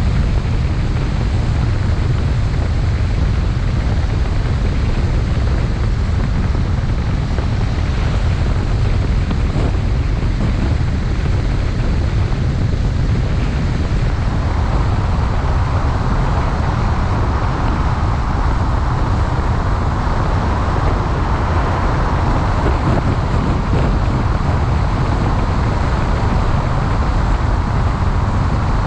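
A car on the move: a steady low rumble of road and wind noise, with a higher hiss joining about halfway through.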